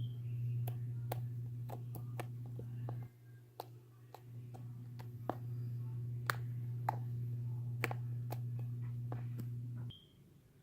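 Homemade shaving-cream slime being squeezed and stretched by hand, giving sharp, irregular little pops and clicks, about one or two a second, over a steady low hum that cuts off near the end.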